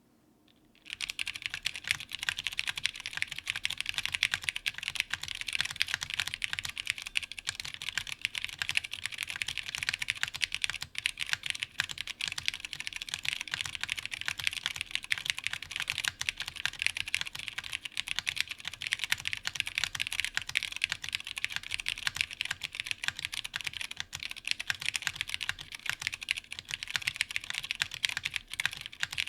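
Fast, continuous typing on a daji Ocho Cuatro custom mechanical keyboard with unlubed vintage Cherry MX Brown tactile switches, an FR4 half plate and GMK keycaps. It is a dense stream of key clacks that starts about a second in.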